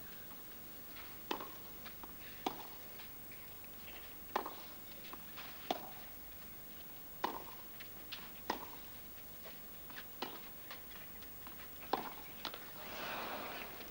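Tennis ball pops from racket strokes and bounces on a clay court, sharp single clicks at uneven gaps of about one to two seconds. A brief swell of crowd noise comes near the end.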